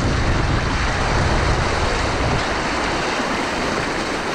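Swollen creek floodwater rushing past in a loud, steady wash of noise. A heavier low rumble fills the first couple of seconds and eases about two seconds in.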